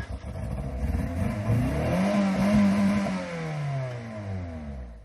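Opel Corsa engine revving hard, rising to a peak about two seconds in, holding, then falling back. The car is stuck and hung up on rough ground.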